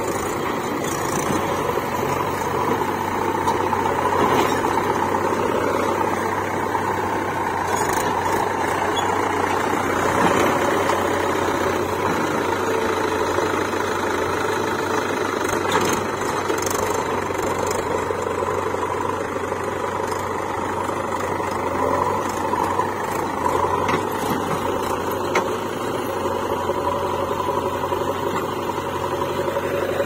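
Mahindra 475 DI tractor's diesel engine running steadily as the tractor drives with its tipping trailer.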